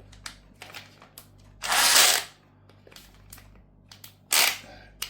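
Clicks and rattles of a CX51 cordless caulking gun being handled, with two louder noisy scrapes, the longer one about two seconds in and a shorter one near the end.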